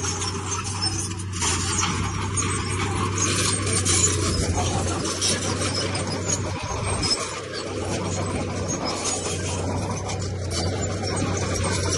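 Komatsu D31P bulldozer's diesel engine running steadily, with a continuous rattle of clicks and scraping from its steel tracks and the stone it pushes.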